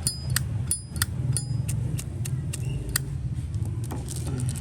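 Zippo lighter lid being flicked open and snapped shut over and over: a run of sharp metallic clicks with a short ring, about three a second, thinning out after about two seconds. A steady low hum runs underneath.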